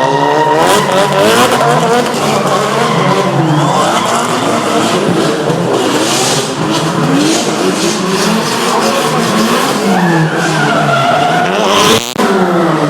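Drift cars' engines revving up and down again and again, with several pitches rising and falling over one another, while the tyres squeal as the cars slide.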